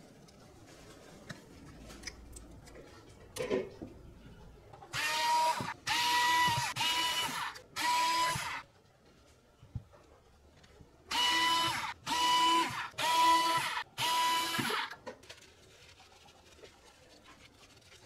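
Small electric power-tool motor whirring in eight short bursts, each under a second long, in two groups of four, with a few light clicks before them.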